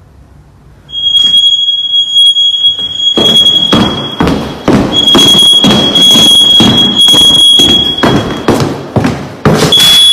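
Smoke alarm sounding a loud, steady high-pitched tone that starts about a second in and breaks off briefly twice. From about three seconds in, a rapid, irregular run of knocks and thumps sounds over it.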